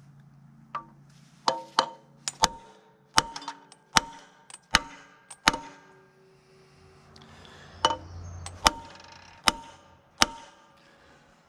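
Ball-peen hammer tapping on the steel of an engine-and-transmission assembly: sharp metallic strikes with a short ring. A quick run of a dozen or so taps over the first five seconds, then four slower ones about a second apart near the end.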